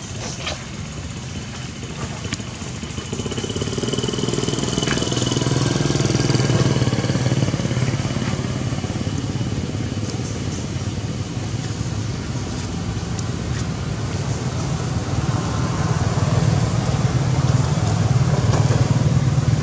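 Motor vehicle engine running, with a steady low rumble that grows louder about three seconds in, eases off, and swells again near the end, as if vehicles pass.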